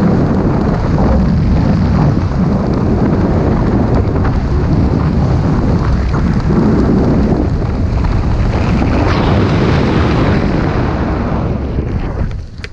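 Loud wind rushing over a helmet-mounted camera's microphone during parachute canopy flight on the final approach, falling away about twelve seconds in as the jumper comes down to the ground.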